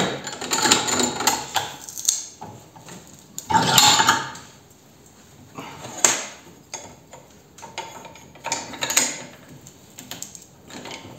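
Steel tools clinking, scraping and rattling against a bench vise and angle grinder as the seized disc nut is worked on by hand, with a sharp metallic clink about six seconds in. There is no motor running.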